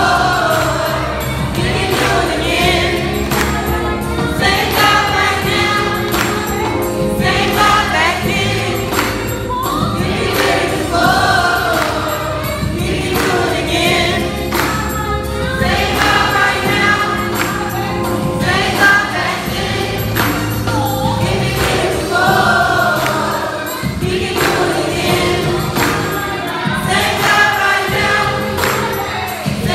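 Gospel youth choir singing with a woman leading on a microphone, over live instrumental accompaniment with a steady bass line.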